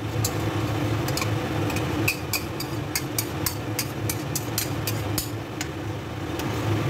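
A metal spoon clinks and scrapes against a stainless steel pot as thick coconut cream is scooped in and stirred, many short sharp clicks. Underneath is a steady low electric hum from the cooktop.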